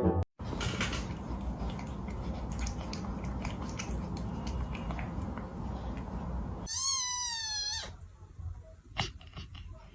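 A domestic cat meows once, a drawn-out call of about a second whose pitch falls at the end, coming about seven seconds in. Before it there is low rumbling noise with scattered clicks.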